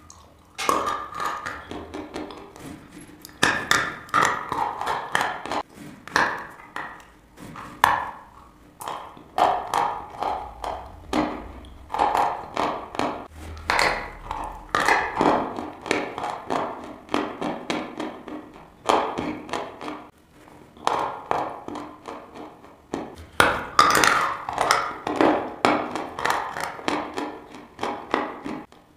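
Close-miked biting and chewing of dry white chalk: rapid sharp crunches in bouts of several seconds, broken by brief pauses.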